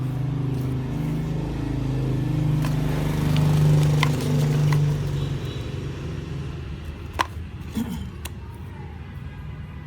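A motor vehicle engine running nearby, growing louder to a peak about four seconds in and then fading away, with a few sharp clicks near the end.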